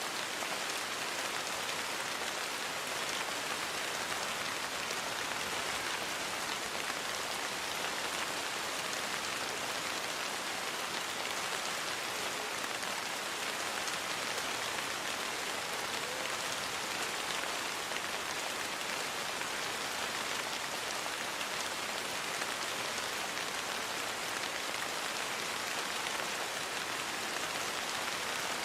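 Steady rain falling on a surface, an even, unbroken hiss of many drops with no thunder or gusts.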